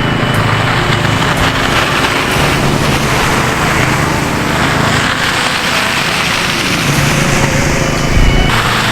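An engine running under load with a strong, steady rushing noise over its low hum; the hum shifts in pitch now and then, and the sound changes abruptly near the end.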